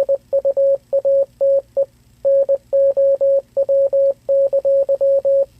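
Morse code beeps played by an online Morse code translator: one steady beep tone keying on and off in short dots and longer dashes, spelling out "Evacuate now". There is a short pause about two seconds in, and the tone stops shortly before the end.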